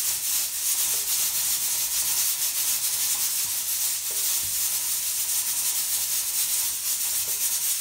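A hand rubbing and pressing chicken pieces in a plastic tub of seasoned flour, dredging them for frying: a steady, scratchy rustle made of quick, uneven strokes.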